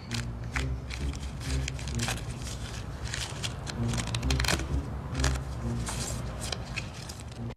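A deck of playing cards being riffle-shuffled and dealt onto a wooden table, a quick run of card clicks and snaps, over low background music.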